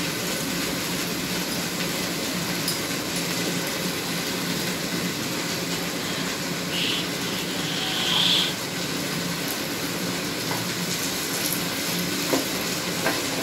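Steady hiss of dal cooking in a kadai over a gas burner, with two short higher sounds about seven and eight seconds in.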